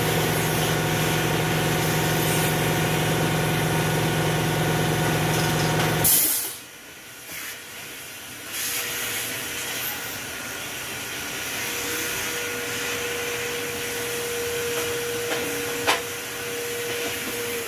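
Canister vacuum cleaner running with a loud, steady hum that cuts off abruptly about six seconds in. A quieter steady whir with a thin whine follows, with a single sharp click near the end.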